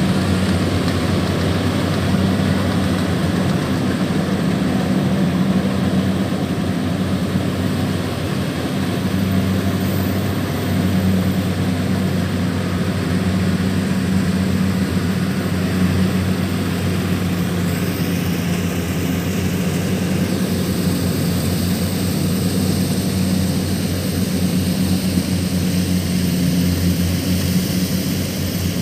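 Kubota DC-105X combine harvester running steadily at working speed: an even, unbroken machine drone with a low hum.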